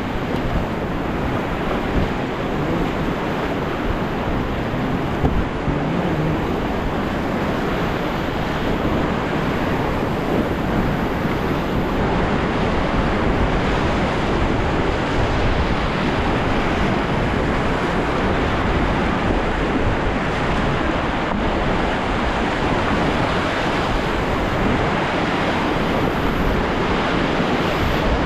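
Steady, loud rush of whitewater river rapids around a raft, with wind noise on the microphone.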